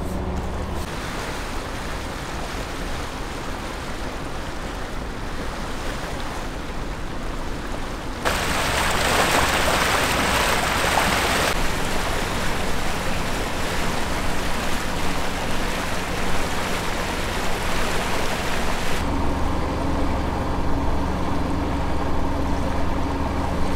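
Wind on the microphone and water rushing along the hull of a sailboat under power, over the low steady hum of its engine. The wind rush grows louder for about three seconds, some eight seconds in.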